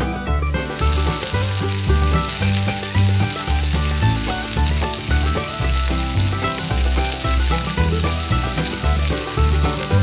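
Hot oil sizzling steadily as small battered dough balls on bamboo skewers deep-fry in a miniature pot; the sizzle sets in about a second in. Background music with a pulsing bass plays under it.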